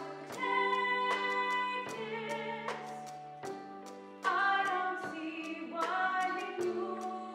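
A woman singing a slow solo melody from a rock-opera stage show, over held accompaniment chords that change every second or two.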